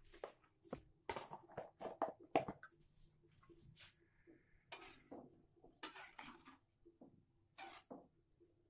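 A cooking utensil clinking and scraping against a pan, in short irregular knocks and a few longer scrapes, over a faint steady hum.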